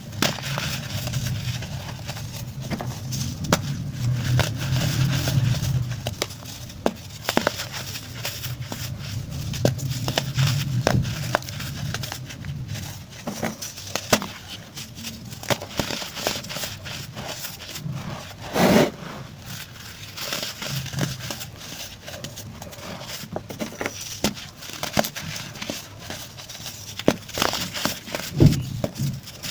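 Chunks of baking soda being crushed and crumbled, giving many small dry crackles and crunches, with one louder crunch a little past halfway.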